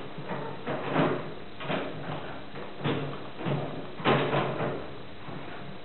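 Wooden board slid back and forth across the table and along the fence of a spindle moulder, about six short scraping strokes.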